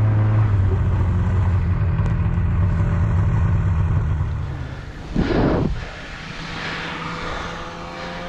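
A motor engine running steadily with a low hum that fades away about four seconds in. A short, loud noise follows about a second later.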